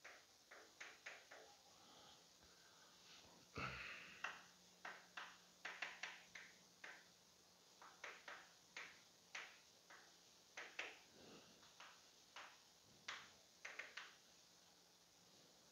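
Writing on a board: quick irregular taps and short scratchy strokes as words are written out, with one louder knock against the board about three and a half seconds in.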